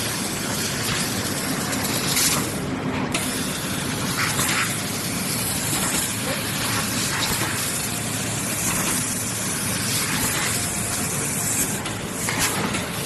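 Mini laser cutting machine running: a steady hiss with a few short, louder spurts.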